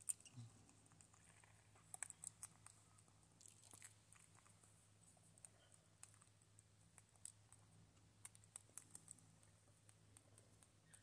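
Faint, scattered clicks and rustles of a Java macaque's fingers picking through a person's hair while grooming close to the microphone, over a faint steady low hum.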